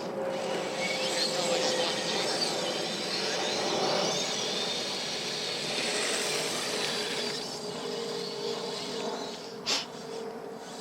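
Kyosho Blizzard RC snow cat driving along, its electric motors and track drive making a steady whirring whine whose pitch wavers up and down with the throttle. There is one sharp click near the end.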